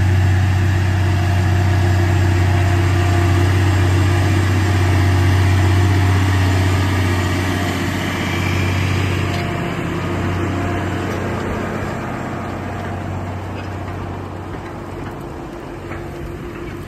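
Case IH STX450 Steiger four-wheel-drive tractor's diesel engine running steadily as it pulls a disc harrow, a deep continuous drone that grows fainter in the second half.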